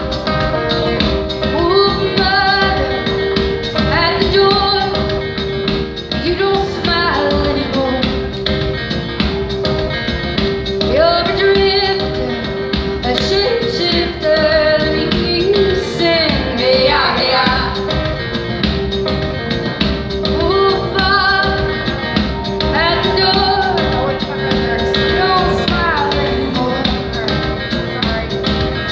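Live band performing a song: female voices singing over strummed acoustic guitar, electric guitar and drums, with a steady held tone underneath.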